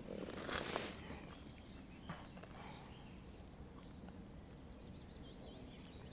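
Small birds chirping in quick repeated notes, busier in the second half, over quiet lakeside ambience, with a short rustle of handling in the first second and a single click about two seconds in.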